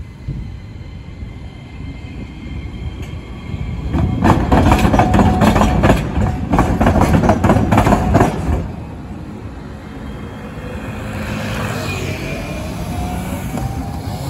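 Iyotetsu 5000-series low-floor tram running over the diamond crossing, its wheels clattering across the rail gaps in a quick run of sharp clacks over a low running rumble. The clatter starts about four seconds in and stops abruptly after about four and a half seconds.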